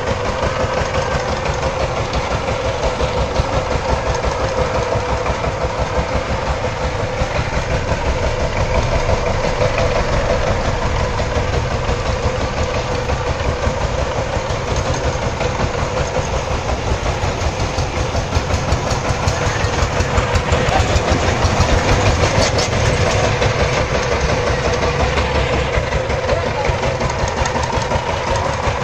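Two-wheel power tiller's single-cylinder diesel engine running steadily with a rapid, even chugging beat as it pulls a loaded trolley.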